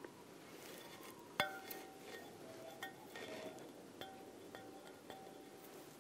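A sharp clink about one and a half seconds in, followed by several lighter clinks spaced through the rest, each with a short ringing tone, over a faint steady room background.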